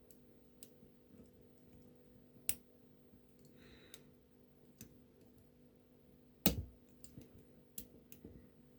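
Small metal clicks and taps of a pick and tension tool working inside an OnGuard dimple lock. There are scattered faint ticks, a sharp click about two and a half seconds in, and a louder click about six and a half seconds in followed by a run of small clicks.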